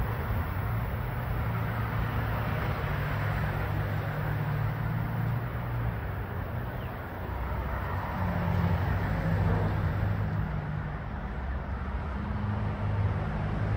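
Distant electric passenger train approaching along the line, heard as a steady low rumble that swells a little about two-thirds of the way in and again near the end.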